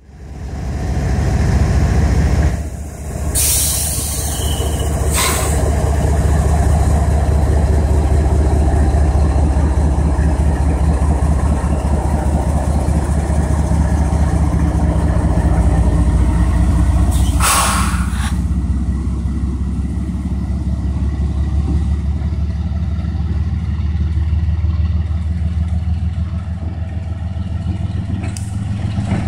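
Two GE ES44AH diesel-electric locomotives' GEVO-12 V12 engines running under power as they pull slowly past, a steady deep drone. Three short hisses cut through, about three and five seconds in and again around seventeen seconds.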